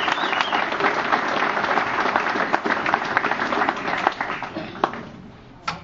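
Audience applauding, the clapping dying away about four and a half seconds in; a single sharp knock just before the end.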